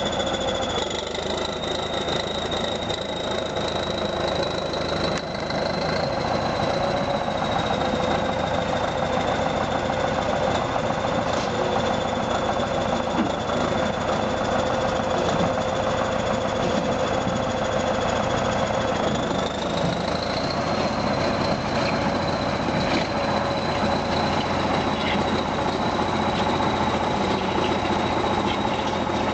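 Tractor engine running steadily under load while pushing a motor ship off the riverbank, with a high whine above the engine note. The pitch rises a little about two-thirds of the way through.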